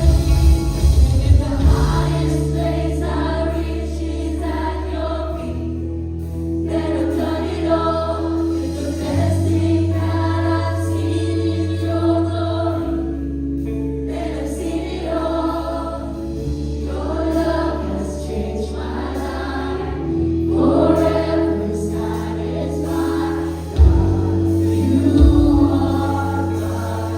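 Congregational worship music: a group of voices singing a slow worship song over sustained bass and keyboard chords that change every few seconds.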